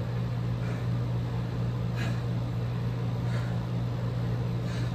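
A steady low hum throughout, with faint heavy breathing about every second and a half from someone winded after kicking drills.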